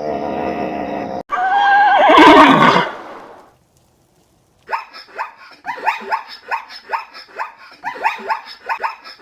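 Animal calls in three parts: a steady held call, cut off after about a second; a loud wavering call that falls in pitch; then, after a short pause, a rapid run of short chirping calls, several a second.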